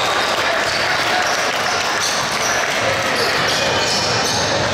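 Basketball game sounds: a ball bouncing on the court amid indistinct voices, with short high squeaks scattered through.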